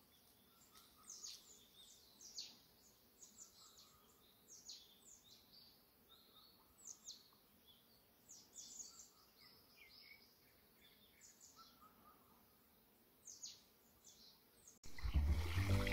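Birds chirping: many quick, high calls that slide downward, scattered irregularly over a faint outdoor background. Near the end, music cuts in suddenly and is the loudest sound.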